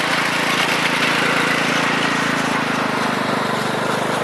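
Craftsman riding mower's 15 hp Kohler Command OHV engine running steadily, with a broad rushing noise over the engine note.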